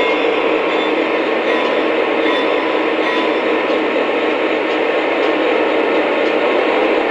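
Lionel O-scale model trains running on the layout's three-rail track: a steady rolling rumble of wheels and motors.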